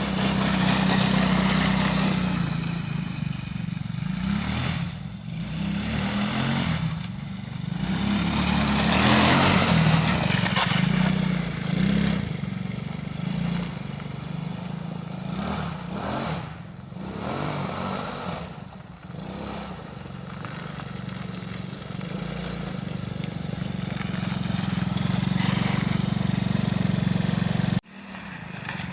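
Tao Tao 110cc quad's small single-cylinder four-stroke engine running, its revs repeatedly rising and easing off, with a brief drop every few seconds. The sound cuts off abruptly near the end.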